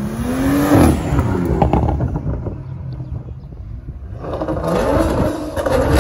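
Modified BMW 1 Series hatchback accelerating hard past, its engine note climbing, then dropping sharply just under a second in with a run of sharp exhaust cracks before fading away. From about four seconds in, another car's engine noise rises.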